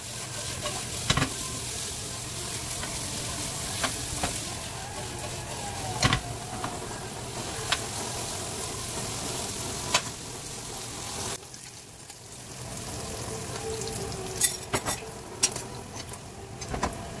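Sliced onions and ham sizzling in a frying pan while a metal spoon stirs them, with sharp taps and scrapes of the spoon against the pan every couple of seconds. About eleven seconds in the sizzle drops suddenly as beaten eggs go into the pan, then builds again under a quick run of spoon taps as the eggs are stirred.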